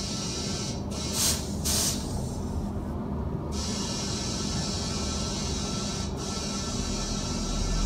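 Compressed air hissing from a dial-gauge inflator gun into a plugged motorcycle tyre as it is refilled, with two short louder bursts of hiss about a second in and a brief break around three seconds; a steady low hum underneath.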